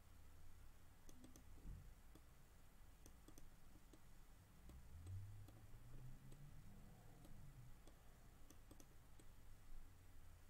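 Faint computer mouse clicks, a few at a time in small groups, over near-silent room tone with a steady low hum.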